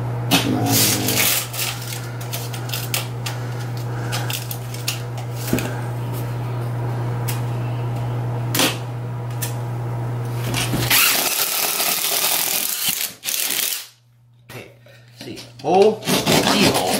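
A steady low hum with scattered clicks and knocks, then a loud rushing hiss for about two seconds that drops almost to silence. Near the end, a utility knife scrapes and scores Durock cement backer board.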